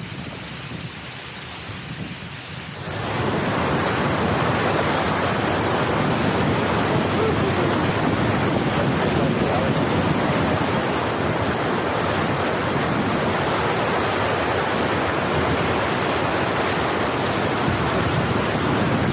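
Car tyres ploughing through floodwater covering the road, throwing up a steady rush of spray, with wind buffeting a microphone held out the car window. The rushing grows suddenly louder about three seconds in and then holds steady.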